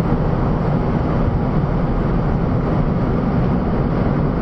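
Steady rumble and rush of a MiG-29's twin turbofan engines and airflow inside the cockpit, flying at about Mach 1 while accelerating.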